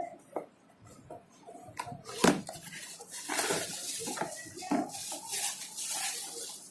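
Handling noises: a few light clicks, a sharp knock a little past two seconds in, then several seconds of crackly rustling and small clatters that fade near the end.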